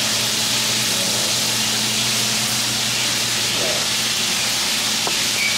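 Bacon frying in a pan: a steady sizzling hiss, with a low steady hum underneath.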